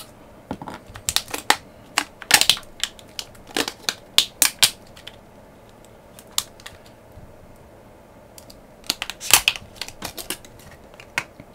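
Blue plastic shrink wrap being cut and peeled off a pack of cylindrical lithium-ion cells by hand: irregular sharp crackles and clicks in two spells, one through the first five seconds and another starting about nine seconds in.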